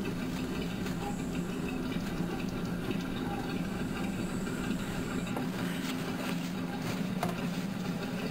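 Cloth with thick chrome-polish paste rubbed hard by a fingertip over a chrome exhaust pipe: continuous scrubbing friction, over a steady low hum.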